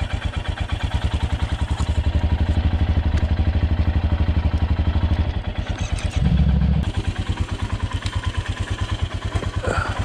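Royal Enfield Himalayan 411's single-cylinder engine running with a steady, rapid pulsing beat. It gets louder from about two seconds in until about five seconds, with a brief louder surge about six seconds in. Its sound is taken as a sign that the bike's condition is getting worse.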